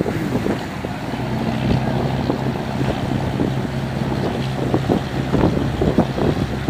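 Boat engine running with a steady low hum, under wind buffeting the microphone and irregular thumps.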